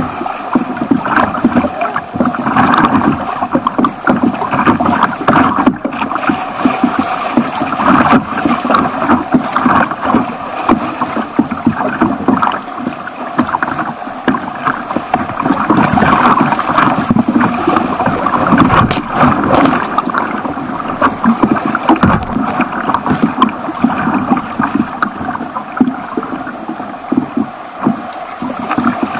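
Rushing, churning whitewater of a small rapid around a kayak, with constant close splashing against the boat.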